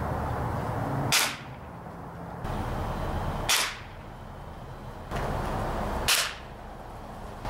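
Three shots from a .177 Gamo break-barrel magnum spring-piston air rifle, each a single sharp crack, spaced about two and a half seconds apart.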